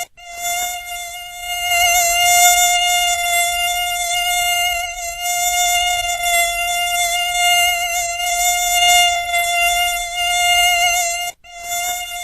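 Mosquito whine from its beating wings: a steady, high buzzing tone with many overtones that wavers slightly in pitch. It cuts out for a moment just after the start and again near the end.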